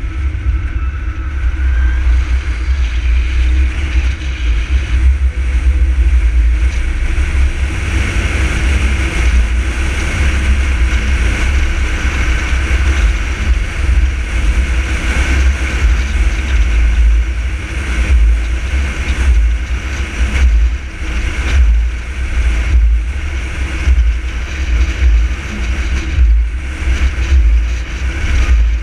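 Car driving at road speed, heard through a GoPro Hero 3 camera mounted on the car: a heavy, fluttering low rumble of wind and road noise over the engine and tyres.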